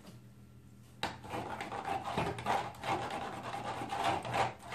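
Rough scraping and rubbing as paint-mixing supplies are handled off-camera, starting about a second in and going on in many short strokes.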